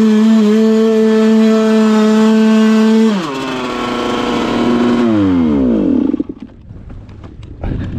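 Yamaha YZ125 two-stroke single held at high revs on a steep sand climb. About three seconds in the revs drop sharply, then they slide down and the engine dies just before the bike tips over in the sand. Near the end come scraping and knocking of the fallen bike, with a thump.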